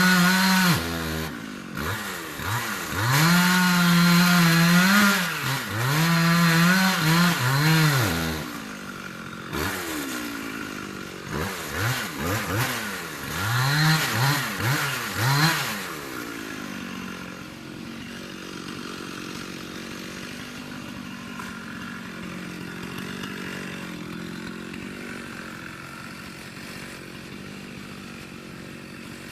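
Chainsaw engine revving up and down again and again at high pitch, then dropping to a steady idle about 16 seconds in.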